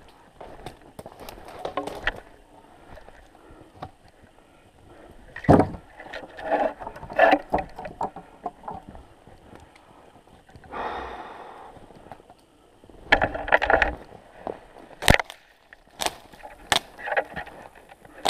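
Footsteps crunching through snow and brush, with branches rustling and brushing past. Several sharp snaps of dry twigs come in the second half.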